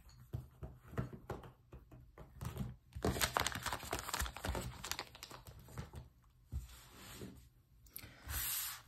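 Plastic sticker pouches and paper envelopes crinkling and rustling as they are handled and slid across a table, with light taps as items are set down. The crinkling is thickest from about three to five and a half seconds in, with a short rustle near the end.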